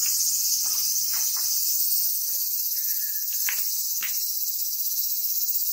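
A dense chorus of insects shrilling steadily at a high pitch.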